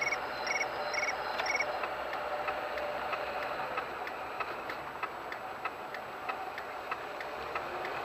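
Steady in-car road and engine noise with a regular ticking of about one and a half ticks a second, like a car's turn-signal indicator. Short high beeps about twice a second sound over it for the first couple of seconds.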